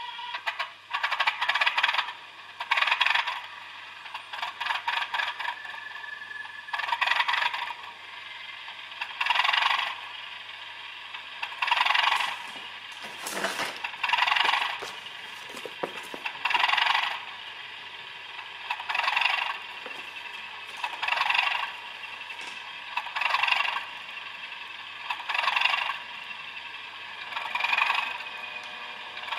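Soundwire digital sound decoder in a Bachmann OO-gauge Class 37 model playing recorded Class 37 diesel locomotive sounds through the model's small speaker. There is a clattering pulse about every two seconds over a steady background, one sharp knock partway through, and a faint high whistle that slowly drops in pitch near the end.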